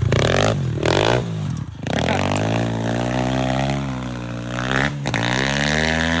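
Dirt bike engine revving hard in short surges, then running on at a wavering pitch, as the bike climbs a muddy hill and its on-road/off-road DOT tire slips.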